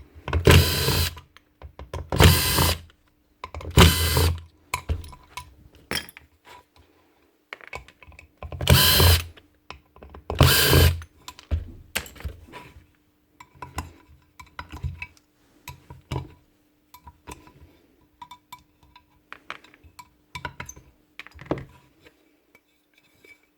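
A small handheld power tool running in five short bursts of about half a second to a second each, with small metal clicks and parts being handled in between.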